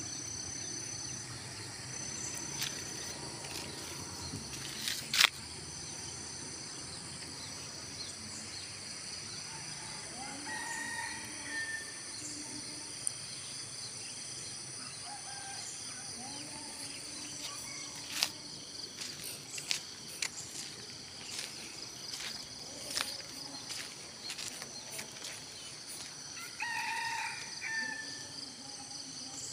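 A rooster crowing twice, about ten seconds in and again near the end, over a steady high buzz of insects. A few sharp knocks, the loudest about five seconds in.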